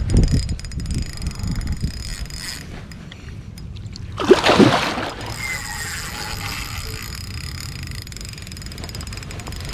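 A hooked fish thrashing at the surface beside a kayak: one loud splash about four seconds in, the loudest sound. Before it there is low rumbling noise from the rod and kayak being handled, and after it quieter water and wind noise.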